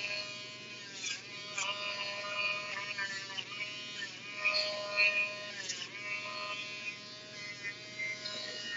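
Electric dog nail grinder running steadily, its motor pitch sagging and recovering several times as it is pressed against the dog's nails.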